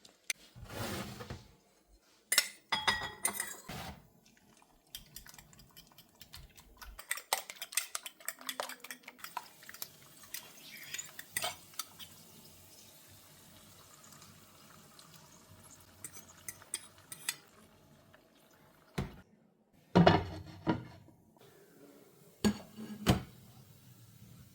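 Kitchen clatter: dishes and cutlery clinking and knocking as things are handled and set down, in scattered irregular strikes with louder bunches near the start and near the end.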